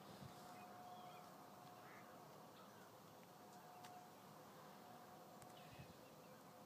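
Near silence: faint outdoor ambience with a few faint, distant bird chirps.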